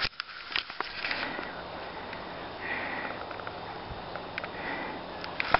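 A man breathing heavily close to the camera's microphone, out of breath from cycling up a big hill, with a few light clicks from the camera being handled.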